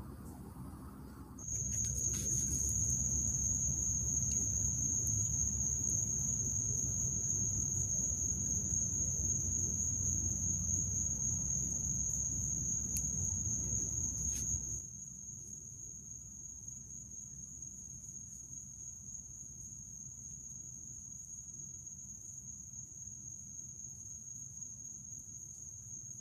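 Crickets trilling steadily in one unbroken high tone that starts a second or so in. A low rumbling noise runs under it and stops about halfway through.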